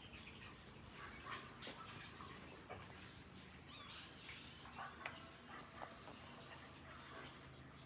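Faint background ambience with scattered light clicks and a brief high chirp about four seconds in.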